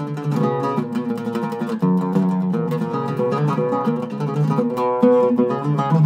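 Iraqi-style oud with a cedar soundboard and French mahogany back, played solo: a melody of quick plucked notes ringing one after another.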